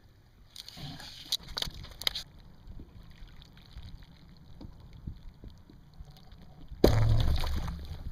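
Scattered clicks and scuffing early on, then near the end a sharp snap followed by about a second of loud splashing: a bowfishing arrow shot into the water and a struck sheepshead thrashing at the surface.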